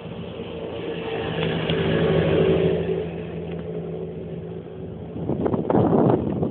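Motor vehicle passing, its engine hum swelling and then fading, followed by a louder rough rumbling noise that cuts off abruptly near the end.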